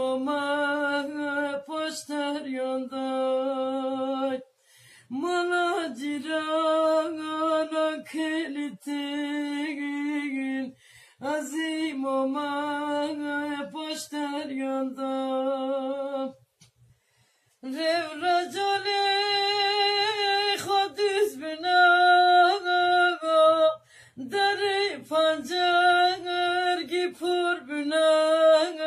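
Kurdish ağıt (lament) sung by a solo voice in long, wavering, ornamented phrases, with short breaths between phrases and a longer pause about halfway through.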